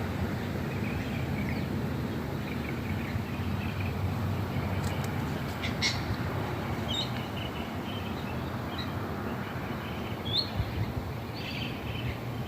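Scattered short bird chirps over a steady low outdoor rumble, with a couple of sharp clicks about five to six seconds in.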